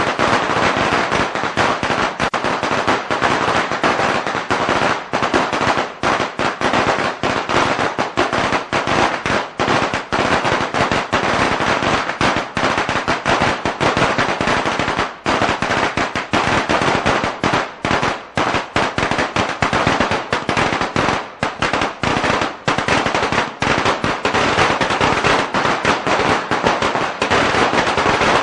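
A string of Chinese firecrackers going off: a dense, unbroken crackle of rapid bangs with no pause.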